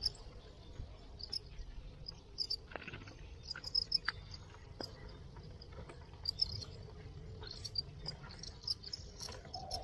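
Crickets chirping: many short, high chirps in irregular bursts, with a few faint clicks among them.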